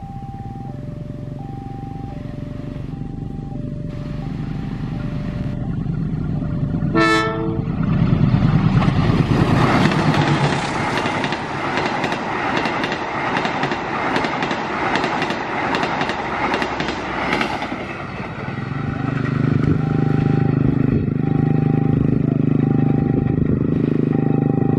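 A level-crossing warning bell rings in alternating two-tone dings. About seven seconds in comes a short blast of the diesel locomotive's horn, on a locomotive the filmer takes for a CC204. The passenger train then passes at speed, with loud wheel clatter over the rail joints for about ten seconds, and as it draws away the two-tone crossing bell rings again over a steady low engine hum.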